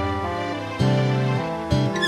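Background music: a melodic track with a strong bass line, its notes changing about every half second.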